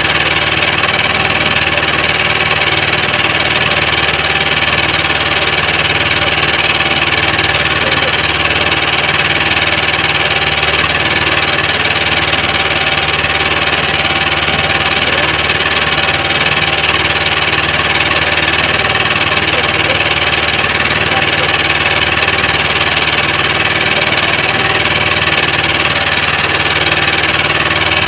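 A small engine running steadily, its speed and loudness unchanged throughout.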